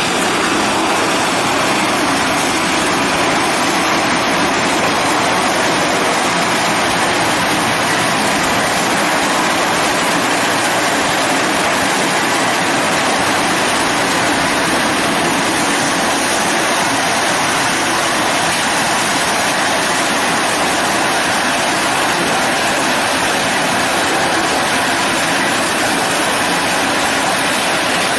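ZZS SC1680 horizontal hammer mill crusher running while it shreds scrap paint buckets: a loud, dense, steady rush of noise with no separate blows standing out.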